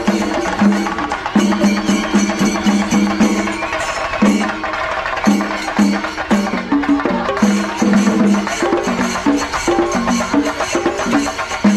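Shinkari melam: a group of chenda drums beaten fast and loud with sticks in a driving, repeating rhythm, with ilathalam hand cymbals clashing along. The deep drum tone thins briefly about four seconds in, then the full beat returns.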